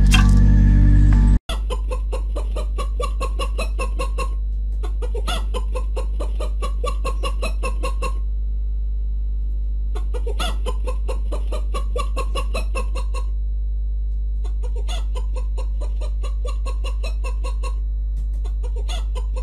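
Domestic chickens, a hen and a rooster, clucking in runs of quick clucks several seconds long, with short pauses between runs, over a steady low hum. Music plays for the first second and a half, then cuts off.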